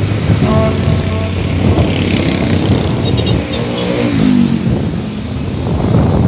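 Traffic noise heard on the move: motorcycle engines running with steady road and wind noise, one engine's pitch falling about four seconds in.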